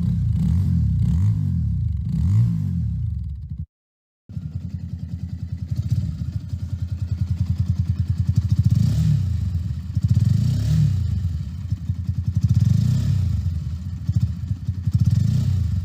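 Stock exhaust of a Bajaj single-cylinder motorcycle idling and blipped up in short revs; the sound cuts off around 4 s and picks up on another stock-exhaust bike idling with a chugging pulse, revved briefly several times.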